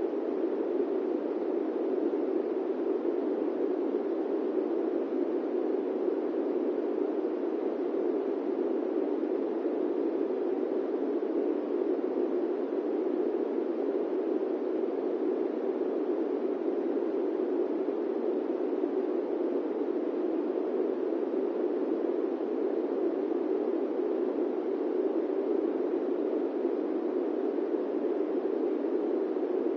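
Steady airplane-cabin white noise: an even, unchanging rush pitched low-to-middle, with no deep rumble beneath it and nothing breaking through.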